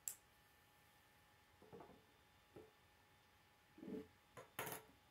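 Plastic K'nex rods and connectors clicking and knocking as a frame is handled and a rod is fitted into it: a sharp click at the start, a few soft knocks, then a quick run of louder clicks near the end.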